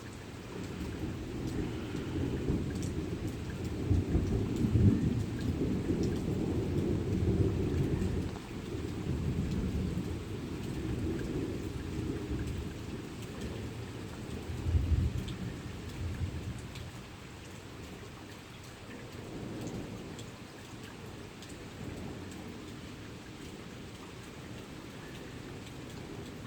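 Thunder rolling over steady rain. The rumble builds in the first few seconds and is loudest about four to eight seconds in. A sharper crack comes about fifteen seconds in, then the thunder dies away and the rain carries on.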